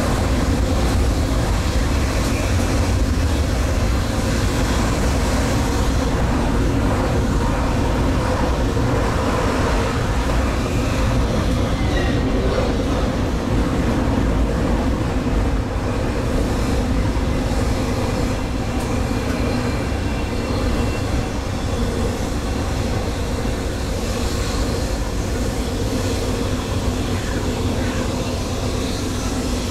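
Stadler GTW 2/6 diesel multiple unit running along the line, heard from the driver's cab: a steady mix of engine and wheel-on-rail noise, easing slightly in the second half.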